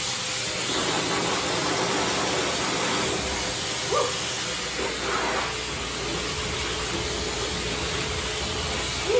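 Self-service dog wash station's dryer blowing air steadily through its corrugated hose, a constant hiss.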